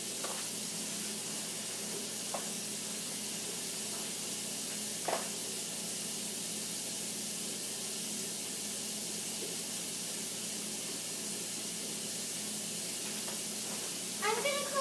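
Steady hiss of background room noise with a faint low hum, broken by a couple of faint light clicks from eggs and dishes being handled, and a voice starting just before the end.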